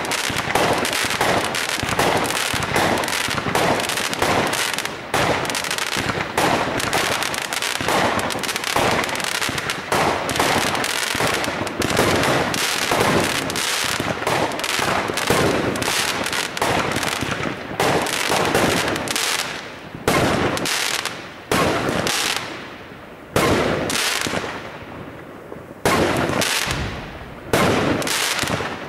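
Aerial fireworks bursting in rapid, near-continuous succession with crackling. After about seventeen seconds the bangs come further apart, each followed by a fading crackle.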